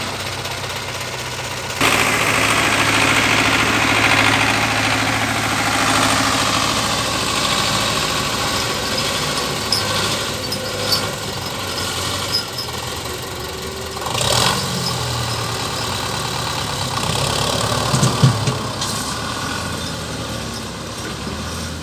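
Belarus tractor diesel engines running, stepping up sharply about two seconds in as they are revved, pulling a heavily loaded sugarcane trolley. A couple of short knocks stand out in the second half.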